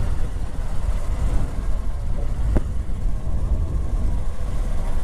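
Steady rumble of a motor vehicle under way, with wind buffeting the microphone and a single sharp click about halfway through.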